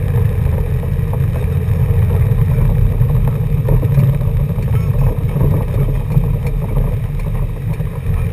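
Car engine and road noise heard from inside the cabin while driving, a steady low rumble.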